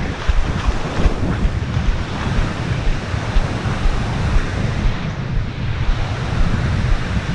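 Gusty wind buffeting the microphone in a low, uneven rumble, over the steady wash of small waves breaking on the shore.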